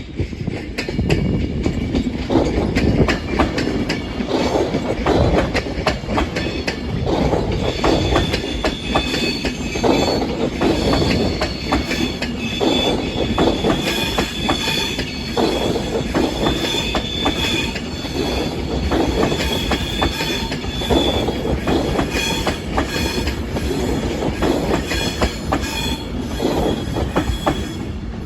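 A train running along the track, its wheels clattering over rail joints and pointwork in a regular rhythm, with a steady high-pitched wheel squeal.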